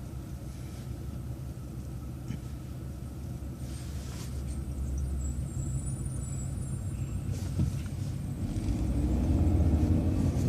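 Bus driving along a city street: a steady low engine and road rumble that grows louder in the last couple of seconds as it picks up speed.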